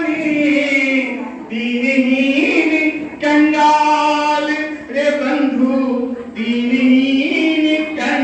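A line of verse sung by one voice in long held notes that slide between pitches, in about five drawn-out phrases.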